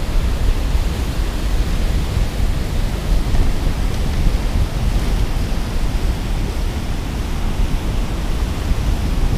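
Steady rush of churning, foaming water, with wind rumbling on the microphone.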